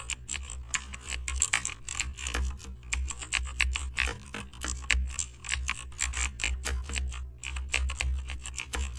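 Computer keyboard typing sound effect: quick, uneven key clicks, several a second, with a short pause about seven seconds in, over a steady low hum.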